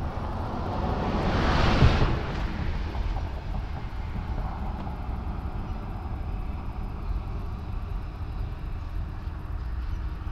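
A vehicle passes, building to its loudest about two seconds in and then fading, over a steady low rumble.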